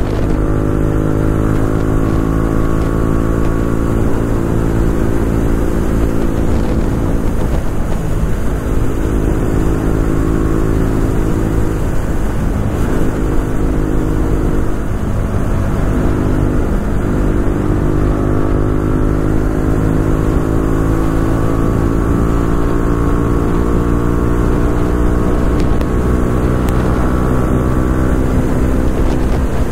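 A vehicle engine running under way, its pitch slowly climbing and then dropping back several times as the revs change, over a steady deep rumble of wind or road noise.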